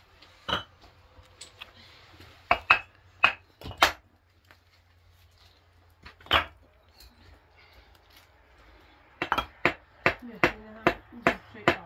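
Hammer taps at the top of a cinder-block wall: sharp, separate knocks a few seconds apart, then a quick run of about three taps a second near the end.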